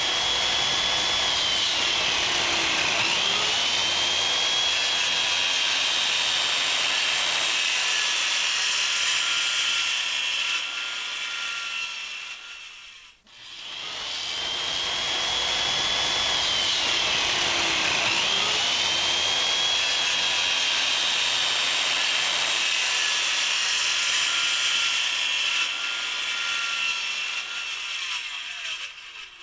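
Handheld electric circular saw running and cutting through wooden boards, its high whine dipping in pitch as the blade bites into the wood. It runs twice, stopping briefly about halfway through, and winds down near the end.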